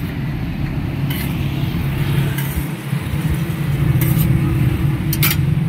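Steady low engine drone of street traffic, with a few short clinks of a metal serving spoon against a glass bowl and an aluminium rice pot as rice is scooped out.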